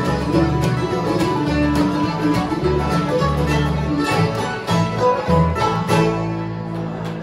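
Bluegrass band playing live: upright bass, mandolin, acoustic guitar, banjo and accordion together, with steady bass notes about two a second under quick plucked notes. Near the end the notes are held longer.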